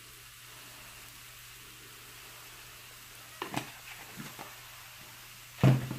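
Sliced mushrooms and a fish fillet sizzling steadily in a skillet. A few light taps come past the middle, and a loud knock comes near the end.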